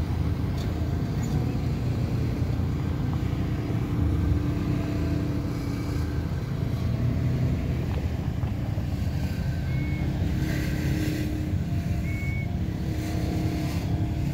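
Low steady rumble of idling engines from the car ferry and the side-by-side UTVs at the landing. A few short high chirps sound over it in the second half.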